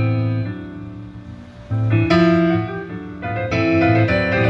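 Piano music played back through a 1950s Jensen 610 triaxial loudspeaker in an Onken cabinet and heard in the room. Struck chords with a strong bass fade away, fresh chords come in about two seconds in, and denser playing follows from about three and a half seconds.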